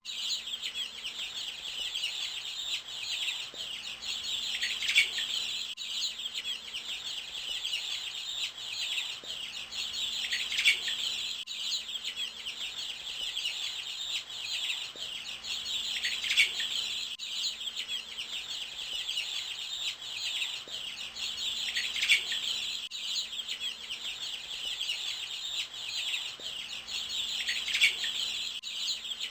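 Dense chorus of small birds chirping and twittering without a break, with a louder call sweeping down in pitch about every six seconds, repeating at even intervals as a looped recording.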